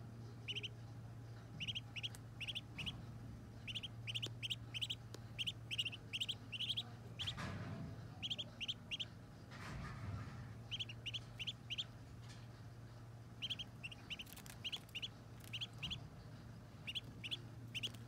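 Muscovy ducklings peeping: short high peeps in quick runs of two to four, repeated again and again over a steady low hum. Two brief rushes of noise come about a third and halfway through.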